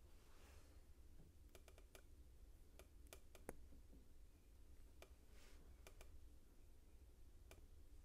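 Faint, scattered clicks of small plastic LEGO pieces being handled and pressed together, the sharpest about three and a half seconds in, with a brief soft rustle of the parts around five and a half seconds.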